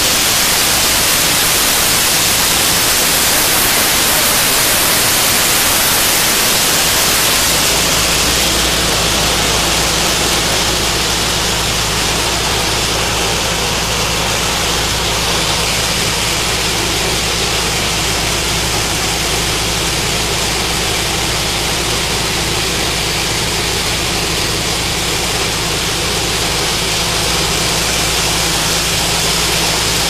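Mini combine harvester running as it cuts wheat: a steady engine hum under a loud, even hiss. The hiss eases slightly about eight seconds in.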